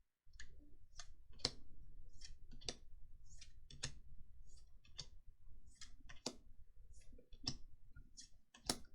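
Trading cards being handled and flicked through by hand: a dozen or so irregular light clicks and snaps of card on card, some with a short papery slide.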